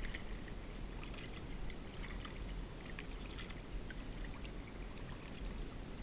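Kayak being paddled: the paddle blade dipping and small splashes and drips of water, scattered irregularly, over a steady low rumble.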